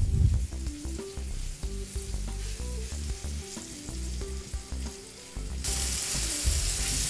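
Veal saltimbocca slices frying in butter and flour in a nonstick pan, sizzling over a raised gas flame, with a spatula moving the meat in the pan. The sizzle grows louder and brighter about five and a half seconds in.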